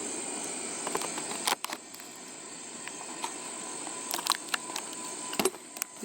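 Snips cutting out a small repair patch: several sharp snips and clicks with pauses between them.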